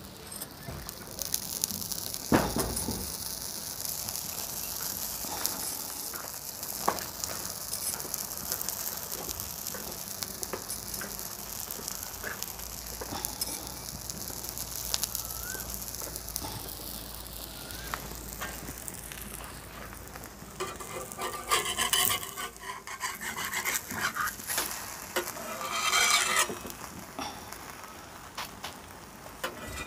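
A puda of wheat flour and jaggery batter sizzling steadily on a hot iron tawa over a wood fire, with one sharp knock about two seconds in. In the last third a metal spatula scrapes and presses the pancake against the pan in short bursts.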